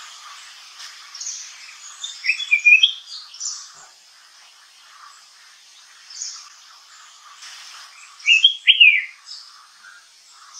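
Flame-throated bulbul singing: two short bursts of quick, sweeping whistled notes a few seconds apart, over faint chirping in the background.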